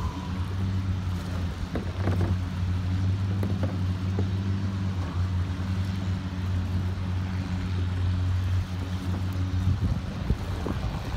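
Boat engine running steadily, a low even hum over water and wind noise; the hum breaks off near the end.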